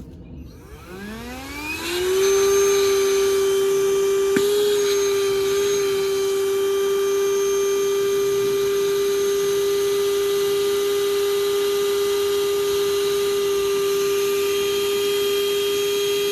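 Small electric air pump switching on, its whine rising in pitch over about a second as it spins up, then running at a steady, loud drone.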